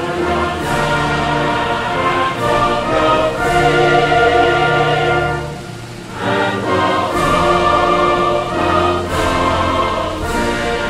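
Choir singing with an orchestra, in long held chords. The music dips briefly about six seconds in, then swells again.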